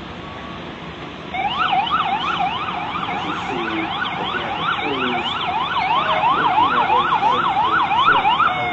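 Emergency vehicle siren on a fast yelp, its pitch sweeping up and down about two to three times a second; it starts about a second in and cuts off near the end.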